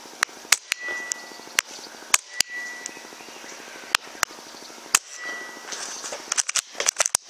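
Hatsan Blitz .22 pre-charged pneumatic air rifle firing: sharp shots one at a time at irregular gaps, then a rapid burst of about eight shots near the end.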